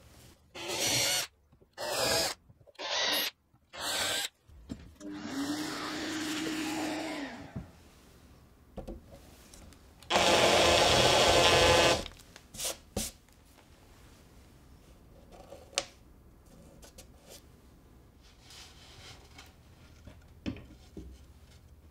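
Cordless drill with a twist bit boring holes in a fibreboard panel: four short trigger bursts, then a longer run of a few seconds whose motor tone drops as it stops. About ten seconds in comes a louder two-second burst as a countersink bit cuts into a hole; after that only light handling knocks.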